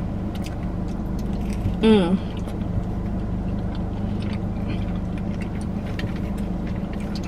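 Steady low hum of a car's engine idling, with faint clicks of chewing and mouth sounds over it.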